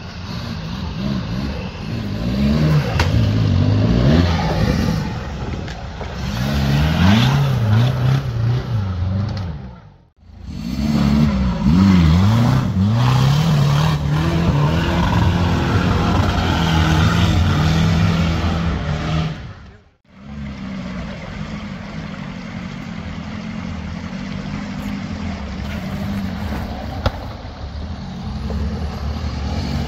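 Off-road 4x4's engine revving hard and easing off again and again under heavy load as it crawls through a muddy creek gully. The sound breaks off briefly twice, about a third and two thirds of the way in, then picks up again.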